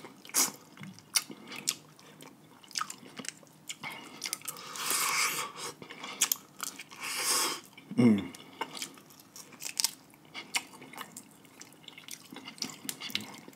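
Close-miked chewing and crunching of snow crab, with sharp clicks as the shell is broken and picked apart, and two longer noisy stretches around five and seven seconds in. A short vocal sound falls in pitch about eight seconds in.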